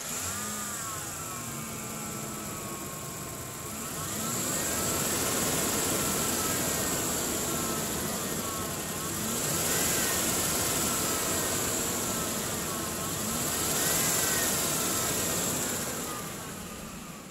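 A 2004 Ford F-150's engine running just after being started. It is revved up about four seconds in, then revved twice more, near ten and fourteen seconds, each time rising and falling in pitch, before settling back down.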